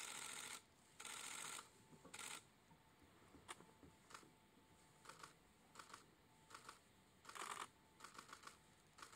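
Faint camera shutters firing in rapid bursts: two longer bursts in the first two seconds, then short runs of a few clicks roughly every second.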